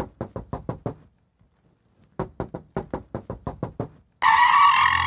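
Rapid knocking on a door, about seven knocks a second, in two bursts with a pause of about a second between them. A sudden loud burst of hissing noise cuts in near the end.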